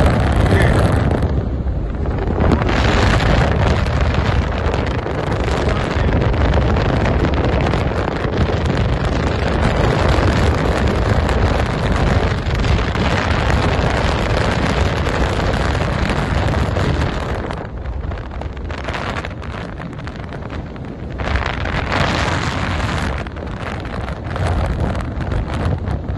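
Loud wind rushing and buffeting on the microphone over a steady low rumble, easing for a few seconds about two-thirds of the way through before picking up again.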